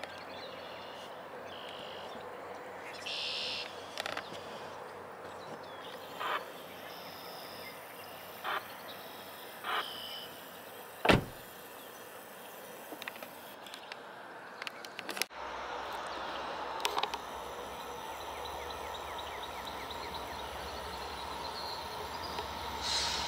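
Birds calling in short high chirps over a quiet field, with one sharp click about eleven seconds in. Then, about two-thirds of the way through, a steady low rumble of an approaching freight train takes over.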